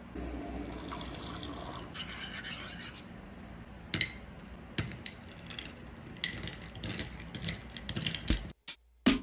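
Instant coffee powder pouring from a sachet into a ceramic mug with a soft rustle, then a series of sharp clinks in the mug as ice cubes go in and a spoon stirs against the sides.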